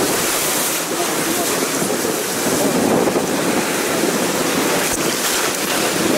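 Steady rushing noise of a fast, rocky river running right beside the track, mixed with the vehicle's own driving noise on the wet gravel.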